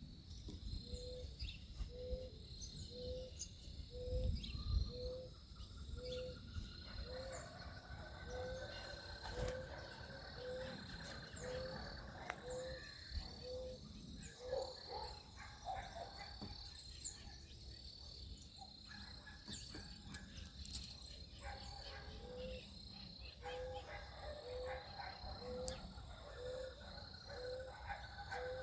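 Backyard birds calling, led by a steady series of short, low hooting notes, about one and a half a second, that pause for several seconds midway. Over them run a rhythmic high chirping, scattered higher chirps and a long drawn whistle, with a low rumble underneath.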